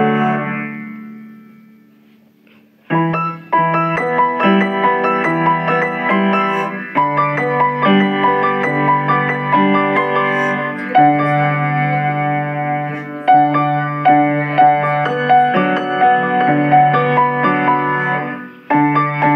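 Piano music: a passage fades away over the first couple of seconds, then a new phrase of chords and melody notes starts about three seconds in and runs on, with a brief break shortly before the end.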